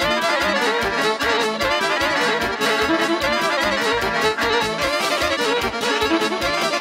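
Live band playing fast instrumental Serbian folk dance music: an accordion-sounding lead over keyboards and guitar, with a quick steady beat.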